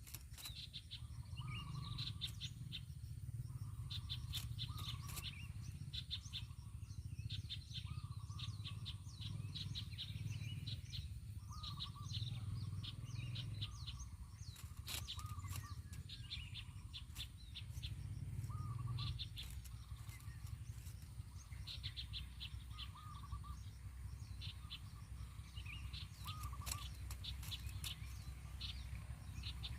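Birds calling outdoors: a short rising-and-falling note repeated every second or two, with bursts of quick high chirps between, over a steady low rumble of background noise.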